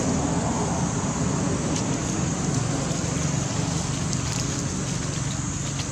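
Steady outdoor background noise: a low rumble and rushing hiss with a steady high-pitched band above it, and a few faint ticks.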